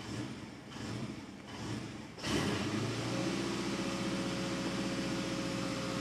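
Subaru Impreza 2.5RS's 2.5-litre flat-four idling roughly after warm-up, surging and sagging unevenly about every 0.7 s. About two seconds in, a louder steady hum with several steady tones starts abruptly over the engine.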